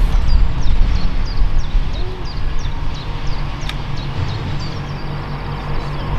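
A loud low rumble, with a small bird chirping short high notes over and over, about three a second.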